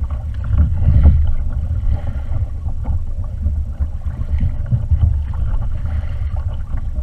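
Steady low rumble of wind buffeting the microphone and sea water moving around a kayak, a little louder about a second in.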